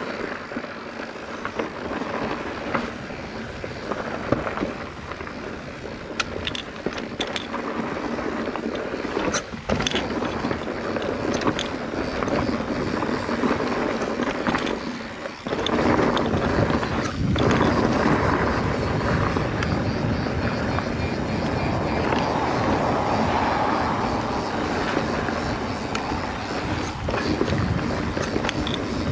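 Mountain bike riding down a dirt trail: wind rushing over the camera microphone with tyre noise and scattered rattles and knocks from the bike over rough ground. The rush gets louder from about halfway through, after a brief dip.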